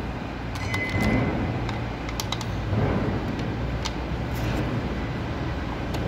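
Scattered light clicks and taps of a screwdriver and small parts being handled on a DeWalt D25871 jackhammer's plastic motor housing during reassembly, a couple of soft thumps among them, over a steady low background rumble.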